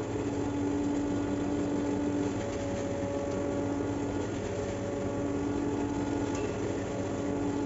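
Tractor-driven forage mill grinding dried alfalfa, running with a steady hum and a few held tones as hay is fed into it.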